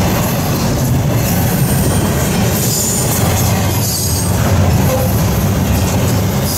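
Double-stack intermodal freight train passing close by: a steady rumble of cars and wheels on the rails, with brief thin high squeals from the wheels now and then.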